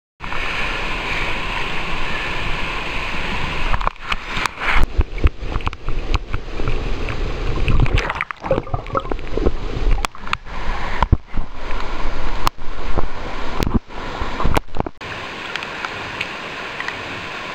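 Fast river water rushing steadily over rapids. From about four seconds in until near the end, a run of knocks, bumps and low rumbling handling noise comes over it as the camera is moved, then the steady rush of the water carries on alone.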